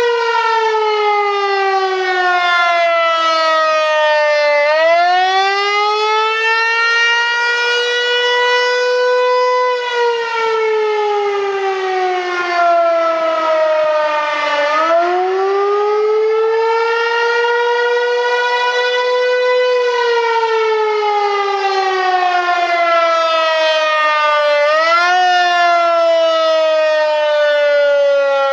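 Federal Signal 508 rotating outdoor warning siren sounding loudly during a test. Its single wailing tone slides down and then back up in slow cycles about ten seconds long.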